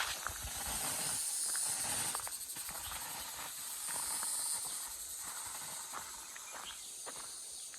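Outdoor nature ambience: a high hiss that swells and fades every couple of seconds, with scattered faint ticks and rustles.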